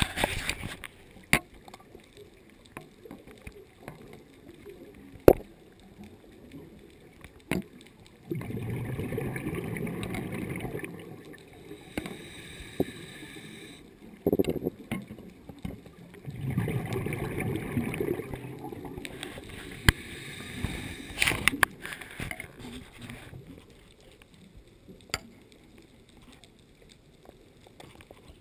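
Underwater sound of a scuba diver breathing: two long bursts of exhaled bubbles from the regulator, each about three and a half seconds, starting about eight and about sixteen seconds in, with a fainter hiss of inhalation between them. Scattered sharp clicks come in between.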